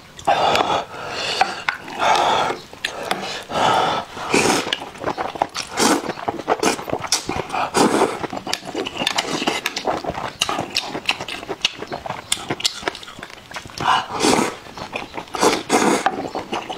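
Close-miked slurping of noodles and broth from a bowl, a string of loud slurps with wet chewing and smacking between them.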